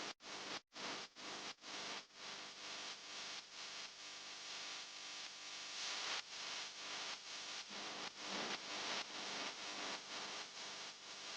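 Electric fan running, a steady rush of air with a faint motor hum, pulsing in quick regular dips as the airflow buffets the microphone.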